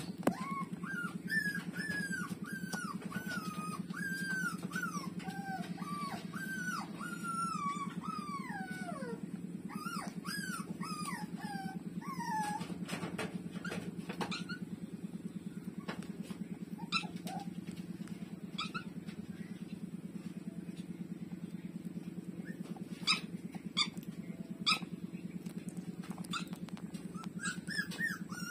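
Puppies whimpering in a run of short, high cries that slide down in pitch. The cries come thickly for the first dozen seconds, then give way to a few short clicks and brief squeaks, and start up again near the end. A steady low hum runs underneath throughout.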